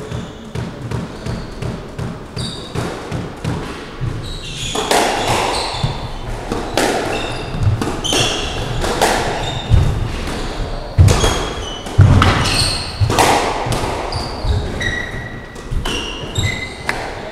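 Squash rally on an enclosed court: the ball is struck hard by the rackets and cracks off the walls in a quick run of sharp, echoing hits, heaviest from about five seconds in to near the end. Short, high squeaks from shoes on the wooden floor run between the hits.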